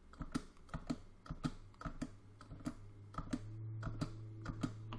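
Computer keyboard keys tapped in quick succession, about four light clicks a second, stepping through a list of charts one by one. A low steady hum sits underneath in the second half.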